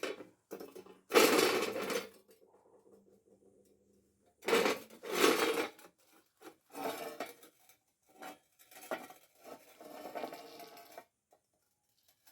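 Steel clattering and scraping in irregular bursts, the two loudest about a second in and near the middle, with a faint ringing hum after the first, then shorter clanks until near the end.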